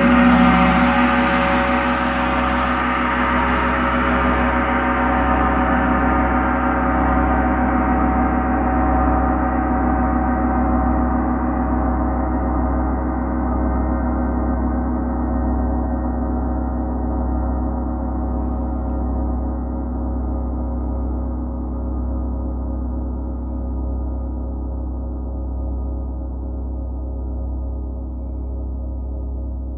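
Large gong struck once with a soft felt mallet, then left to ring: a dense wash of many tones over a low hum that swells and ebbs, the higher tones dying away first as the whole slowly fades.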